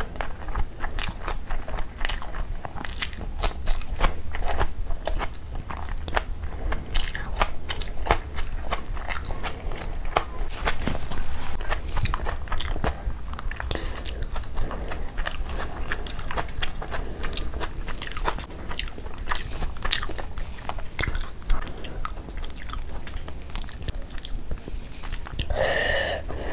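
Close-miked eating: a person chewing and biting a mouthful of fried rice and chicken curry, with many short wet mouth clicks and smacks throughout.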